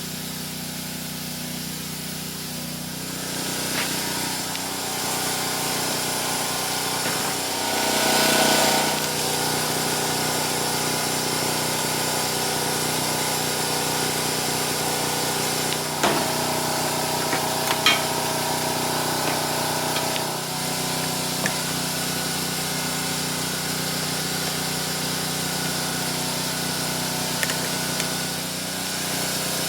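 Small engine running steadily, swelling briefly about eight seconds in, with a few sharp clicks later on.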